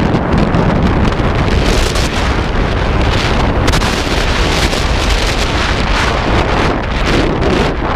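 Strong gusting wind buffeting the microphone, a loud continuous rumble with rushing gusts, likely over the surf of big waves.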